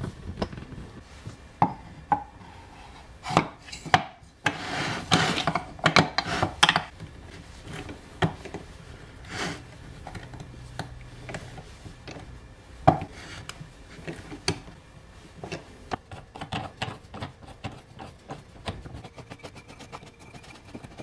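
Irregular knocks, taps and rubbing as wooden table parts and bolt hardware are handled and fitted by hand.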